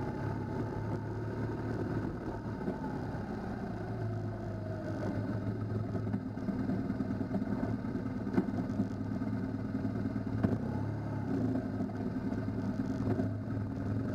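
A motorcycle engine running steadily from on board while riding a gravel dirt track, its pitch easing down and back up, with rattling from the rough surface. Two sharp knocks come past the halfway point.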